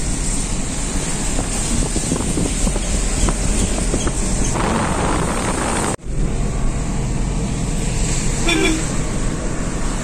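A car driving along a road, heard from inside the cabin: steady engine and tyre noise. A brief rustle comes about five seconds in, and the sound drops out for a moment just before six seconds.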